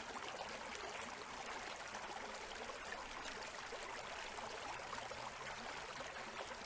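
Steady sound of flowing, trickling water, like a small stream, running without a break.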